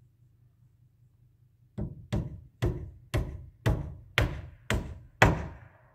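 Hammer blows on wooden roof framing: eight sharp strikes in a steady rhythm of about two a second, each louder than the last, the final blow the loudest.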